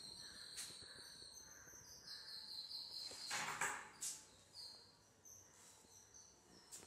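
Faint high-pitched insect trilling runs steadily in the background. A few soft knocks and a brief rustling noise come about three to four seconds in.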